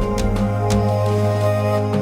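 Background music: sustained tones with a percussive beat.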